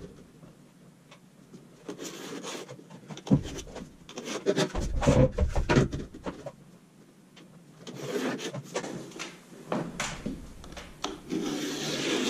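Intermittent rubbing and scraping with a few soft knocks, from hands and tools working on a wall while its brick layout is marked out; it goes quiet for a couple of seconds past the middle, and the scraping gets denser near the end.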